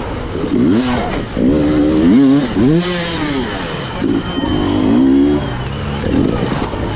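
Two-stroke enduro motorcycle engine revving up and down over and over as the throttle is opened and closed, its pitch rising and falling in short surges about once a second.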